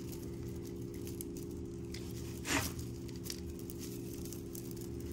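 Hands moving costume jewelry (chains and beads) across a textured table covering: faint rustling and small clicks, with one brief louder scrape about two and a half seconds in, over a steady low hum.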